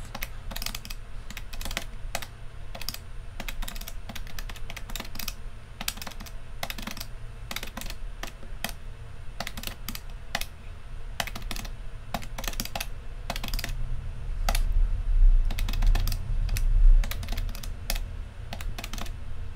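Plastic keys of a desktop calculator being pressed in quick, irregular taps, several a second, as a column of figures is added up. A low rumble swells for a couple of seconds about three-quarters of the way through.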